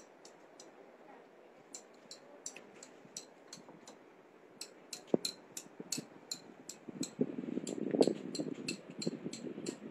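Sharp, high ticking, fairly evenly spaced, sparse at first and then about three ticks a second from about halfway through, over a low background with a faint clatter swelling near the end.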